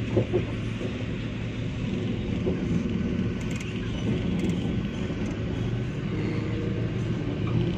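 Steady low rumble of a car driving slowly in traffic, heard from inside the car, with two short knocks right at the start.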